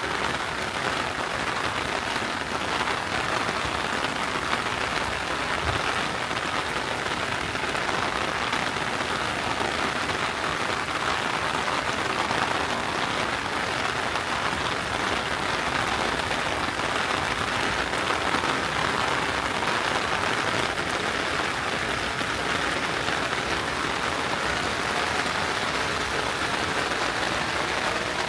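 Steady summer rain falling: an even, unbroken hiss of drops that stays at the same strength throughout.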